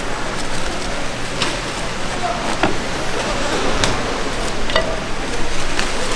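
Plastic cling wrap crinkling and crackling as it is pulled and pressed over a foam plate of sliced raw fish, with scattered sharp crackles over a steady hiss.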